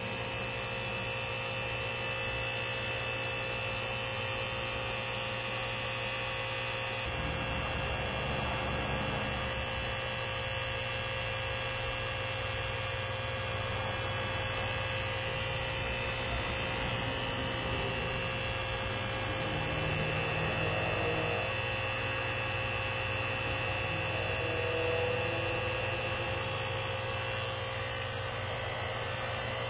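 Solar-powered Cat high-pressure misting and fogging pump running with a steady electric hum, over the even hiss of fog spraying from the nozzles.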